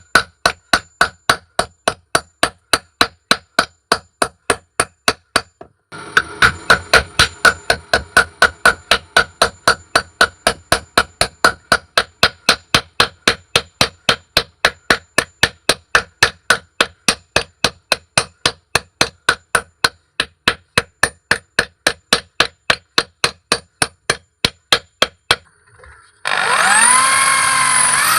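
Blacksmith's hammer striking metal on an anvil in a steady rhythm, about three ringing blows a second. Near the end the hammering stops and a power tool spins up, its pitch gliding.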